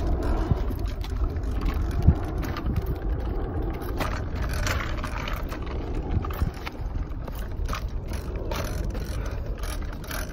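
Child's bicycle rolling along pavement without pedalling: the rear hub clicks and the bike rattles over a steady low rumble of the tyres, with a sharper knock about two seconds in.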